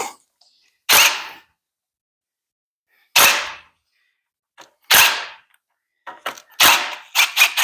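A series of sharp metal clanks, each with a short ringing tail: single hits about two seconds apart, then a quicker cluster of three near the end, as engine parts and tools are handled during an LS engine teardown.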